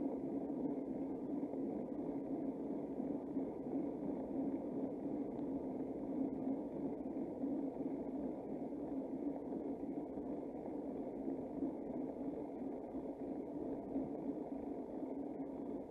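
Steady, muffled rush of wind and road noise from riding a bicycle.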